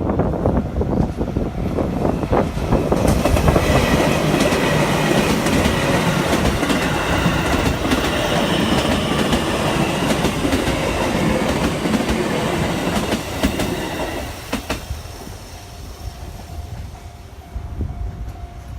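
Chuo Line rapid electric train passing over a level crossing: wheels clatter over the rail joints and the cars rumble by, with a high whine over the noise. The train noise dies down about 15 seconds in, and the crossing's warning bell is heard ringing near the end.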